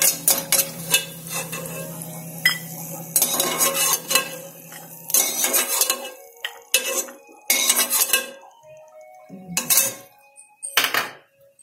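Slotted steel spoon scraping and clinking against an aluminium pressure cooker as fried cashews are scooped out of ghee and tipped into a steel bowl. The clatter is dense for the first five seconds or so, then thins to a few separate clinks.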